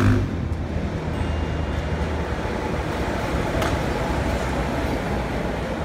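Monorail train passing overhead on its elevated beam, a steady running noise mixed with street traffic.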